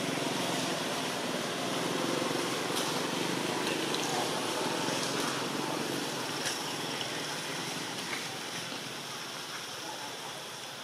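Steady outdoor background hiss with a few faint, brief ticks and chirps over it.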